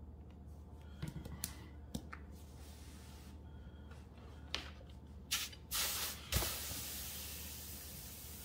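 Steam iron set down with a thump on a water-soaked towel over dented engineered wood flooring, then a steady hiss of steam as the heat drives into the wet towel to swell the dent back up. A few light clicks and handling sounds come before it.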